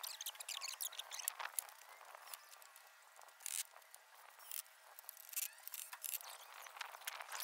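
A cordless drill run in a few short bursts while fixing the corners of a timber gate frame, with faint chirps in the background between the bursts.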